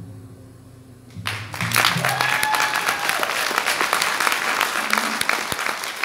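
The last quiet low notes of a song die away, then about a second in a concert audience breaks into loud, sustained applause, with a cheer rising over the clapping.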